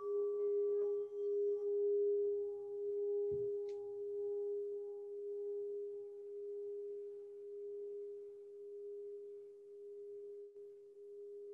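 A struck singing bowl rings out in a long steady hum that slowly fades, its higher overtone wavering in and out. A soft thump comes about three seconds in.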